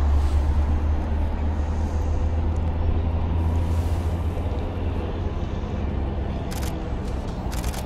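A motor vehicle's engine rumbling low, slowly fading as it moves off. Two brief clicks come near the end.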